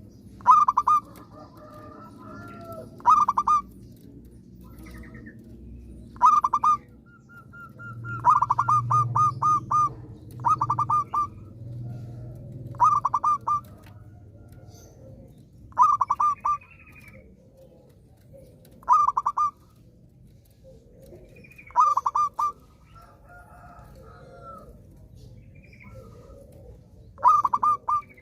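Zebra dove (perkutut) singing its rolling cooing song: about ten short phrases of quick repeated notes, each a second or less, every few seconds.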